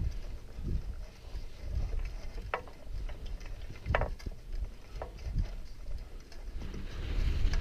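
Skis swishing and scraping through soft, sloughing snow in short turns down a steep slope, a swish about once a second with a couple of sharper scrapes, over a steady low rumble of wind on the microphone.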